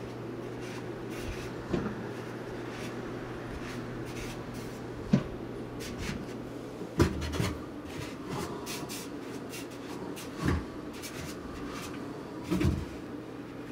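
White plastic trays of a double carousel lazy Susan in a corner kitchen cabinet being turned and handled, giving several short knocks and clacks with soft rubbing between them; the sharpest knocks come about five and seven seconds in. A steady low hum runs underneath.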